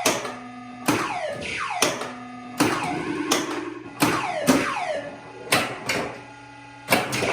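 Williams Time Warp pinball machine in play: sharp knocks at uneven spacing, each followed by a falling electronic sweep, with short steady tones between them.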